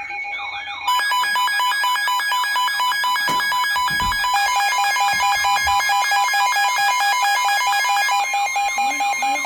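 Several electronic alert tones sounding at once: a steady two-tone attention signal overlaid with rapidly pulsing beeps and warbling, siren-like alarm tones, growing much louder about a second in. These are emergency alert and weather radio alarms heralding a severe weather warning.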